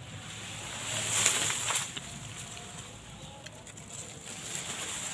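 Outdoor rustling and hiss, swelling about a second in and fading again by two seconds, over a faint steady high-pitched tone.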